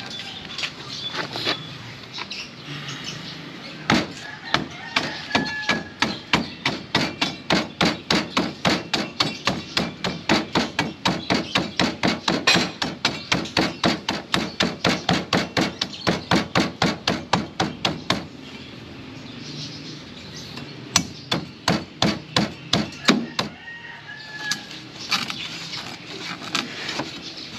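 A rusty old machete chopping repeatedly into a coconut's fibrous husk. A fast, steady run of chops, about three a second, goes on for some fourteen seconds, followed by two shorter bursts of chops near the end. The blade is still cutting through the husk and has not yet reached the shell or the meat.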